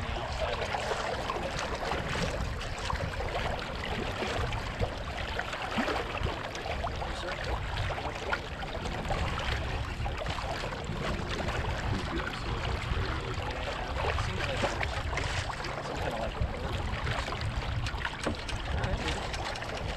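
Water lapping and splashing against a Catalina 22 sailboat's hull, a continuous irregular crackle of small splashes, with wind rumbling on the microphone underneath.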